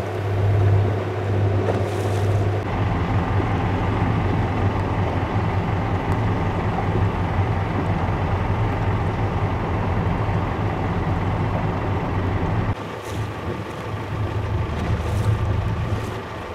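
Motorboat engine running steadily, a low even hum with a haze of water and wind noise over it. Its tone shifts abruptly twice, about three seconds in and again near the thirteen-second mark.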